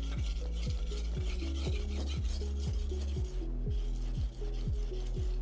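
Steel kitchen knife blade being stroked back and forth on a whetstone, a repeated wet scraping hiss of hand sharpening. Background electronic music with a steady beat plays underneath.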